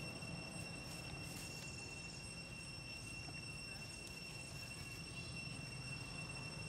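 Faint outdoor background noise: a steady high-pitched whine over a low rumble.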